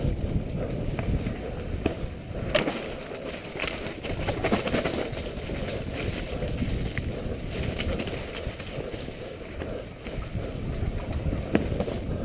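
Mountain bike descending a rough dirt trail at speed: wind buffeting the helmet-mounted microphone and the tyres rumbling over the ground, with the bike rattling and knocking over bumps, sharpest about two and a half seconds in and again near the end.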